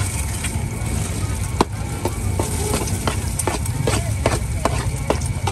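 Street food market bustle: a steady low hum with irregular sharp clacks of cooking utensils. The loudest clack comes about a second and a half in, and a quicker run follows through the middle.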